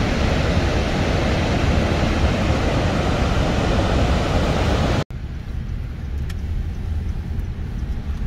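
Steady loud rush of Niagara Falls' falling water. It cuts off abruptly about five seconds in, replaced by the quieter low rumble of a car driving.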